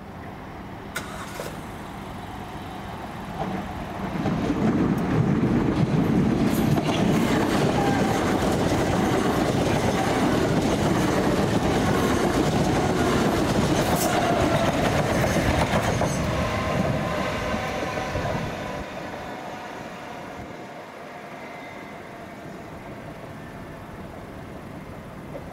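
A train passing over the level crossing. It builds up about four seconds in, stays loud for around fourteen seconds with a whining tone that shifts in pitch, then fades away.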